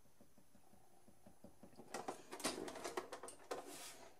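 Light clicking and rattling of a partly dismantled Keurig K40 coffee maker's plastic housing and loose parts as it is handled and turned over. It starts about halfway through, after near silence.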